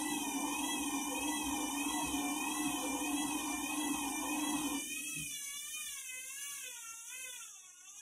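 Front-loading washing machine's drum motor whining at spin speed, the whine wavering up and down in pitch about once a second. About five seconds in, the lower hum drops away and the whine fades as the drum slows and the laundry starts to tumble.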